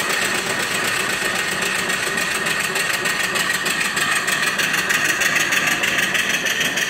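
Horizontal mill steam engine running smoothly on steam, a rapid, even beat over a steady hiss.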